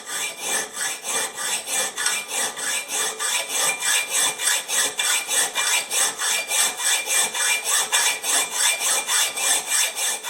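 Rhythmic rasping, about four even strokes a second, like a tool stroking back and forth across a surface; it stops abruptly right at the end.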